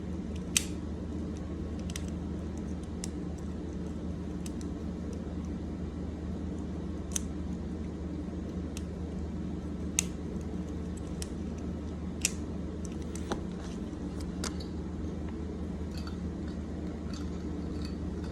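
Plastic infinity cube fidget being folded and flipped over and over, its hinged blocks snapping together in scattered sharp clicks, a second or more apart. A steady low hum runs underneath.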